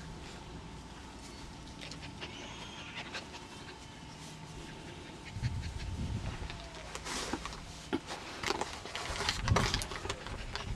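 A dog panting close by, louder and more uneven from about halfway through.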